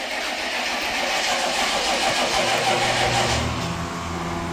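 1995 Chevy 3500's 6.5 L V8 diesel running rough just after a hard cold start, after sitting all winter. A steady low drone comes in about two seconds in and settles lower a second later.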